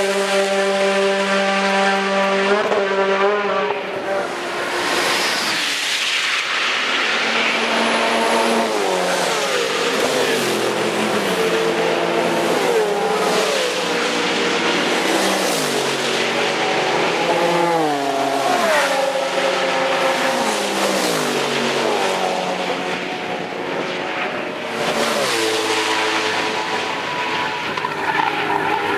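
Several race cars passing in quick succession, their engines overlapping. Each engine note climbs and then drops in steps as the cars change gear on the way by.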